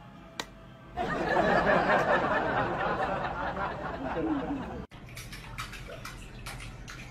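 A Flyco hair dryer switched on about a second in, blowing steadily for about four seconds and cutting off suddenly. Then tap water runs into a steel sink, with light splashes and ticks as a cat paws at the stream.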